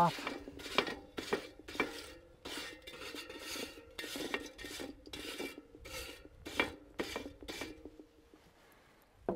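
Wire grill brush scrubbed back and forth over the hot steel cooking grate of a Weber charcoal kettle grill to clean it, about two scraping strokes a second with a faint steady tone beneath them. The scrubbing stops near the end.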